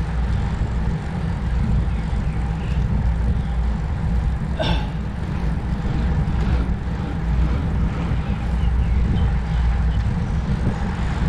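Wind rumbling and buffeting on the microphone while riding, a steady low roar, with a brief higher squeak about four and a half seconds in.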